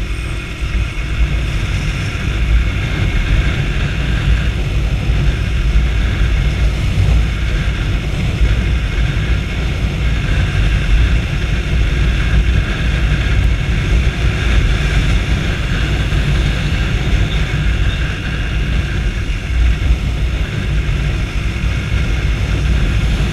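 Sundown STX 200 Motard's single-cylinder engine running while the bike is ridden, under steady, heavy wind rumble on the helmet microphone.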